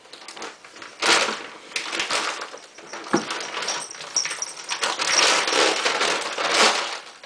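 Rustling, scraping and clicking as pet food is served from a freshly opened can, with sharp knocks among the noise. A faint, thin, high whine is heard through the middle.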